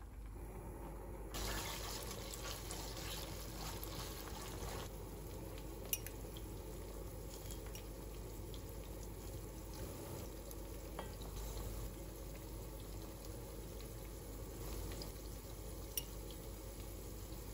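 Red paste frying in oil in a cast-iron pot: a steady soft sizzle. Twice a short light click rings out, a small spoon against a small bowl as spices are spooned in.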